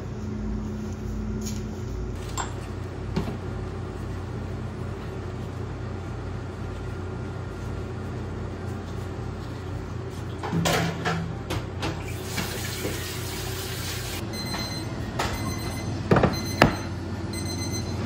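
Working sounds in a bakery kitchen: a steady machine hum under occasional knocks and clatter, with a scraping, rushing noise about two-thirds of the way through. Near the end a high beeping repeats several times and two sharp knocks stand out.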